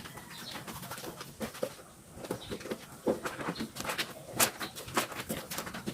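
Clothes being washed by hand in a basin of water: wet fabric rubbed and squeezed, with water sloshing and a run of short sharp splashes and clicks that grows busier about halfway through.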